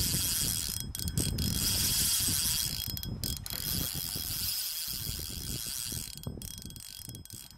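Spinning fishing reel's drag clicking in a fast, continuous ratchet as line is pulled from the spool by a hooked carp, with a few short breaks and fading toward the end.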